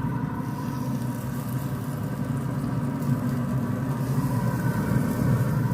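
Steady mechanical hum of a running motor: a low drone with a faint higher tone above it, unchanging throughout.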